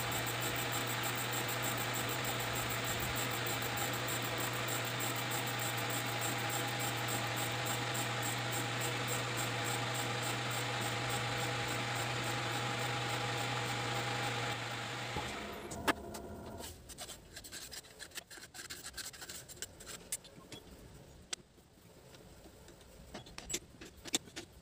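Metal lathe running steadily with its four-jaw chuck spinning, shut off about fifteen seconds in and winding down. Then a few sharp clicks and light metal knocks as the stopped chuck is handled.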